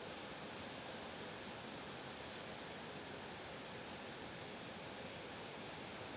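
Steady, even hiss with no gusts, knocks or other events, brightest high up.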